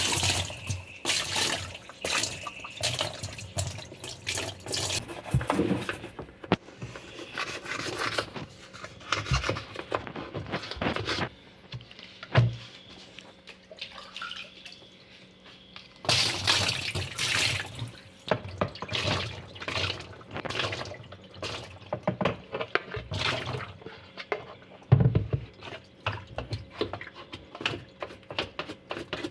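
Water splashing and dripping with irregular clatter as washing machine parts are washed by hand under running water. The splashing stops for a few seconds partway through, with a single knock, then resumes.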